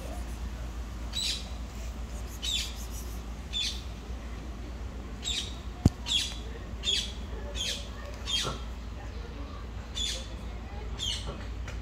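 A bird calling with short, sharp, high chirps, about one a second at irregular gaps. There is a single sharp click about halfway through.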